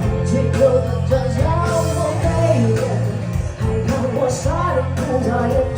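Live rock-style band music with guitar over sustained bass notes, a bending melody line carrying above it.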